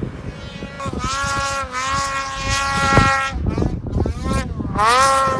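Two-stroke snowmobile engines revving hard at high rpm, the pitch dipping and then climbing as the sleds climb the slope, with a sharp knock about three seconds in. Near the end another sled revs up with a steeply rising pitch.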